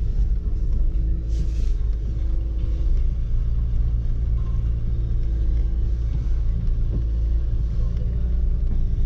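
Dacia Duster engine and road rumble heard from inside the cabin as the car drives slowly, a steady low drone, with a brief hiss about a second and a half in.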